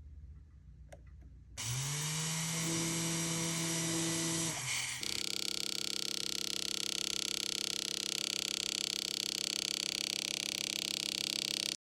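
A small electric power tool motor spinning up about a second and a half in, its pitch rising briefly and then holding steady. Its sound shifts near 5 s into a steady, many-toned whine, then it cuts off abruptly just before the end.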